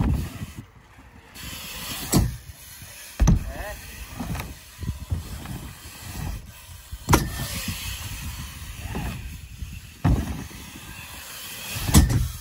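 BMX bike tyres rolling and rumbling over a wooden ramp track, with about seven sharp thuds spread through, the loudest near the end, as the bikes land and strike the wooden ramps.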